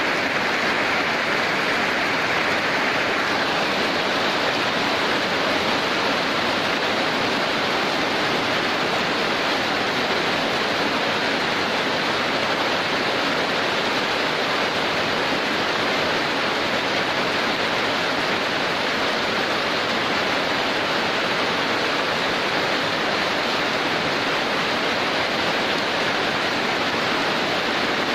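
Heavy rain falling as a steady, dense hiss without a break.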